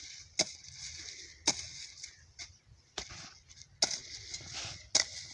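A short-handled hoe chopping into dry, hard soil, five sharp strikes about a second apart, as the bed is dug for planting.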